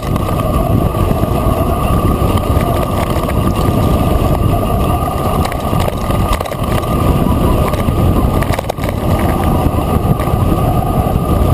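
Mountain bike descending a gravel track at speed: a loud, steady rumble of wind and tyre noise on the bike-mounted camera, with small clicks and rattles from the gravel and the bike.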